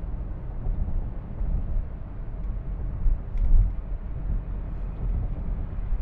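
Road and engine noise inside a moving car's cabin at highway speed: a steady low rumble, with a brief swell about three and a half seconds in.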